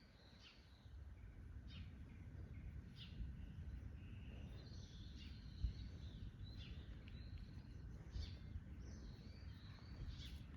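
Small birds chirping and calling repeatedly, short notes and brief downward-sliding calls, over a faint low steady rumble.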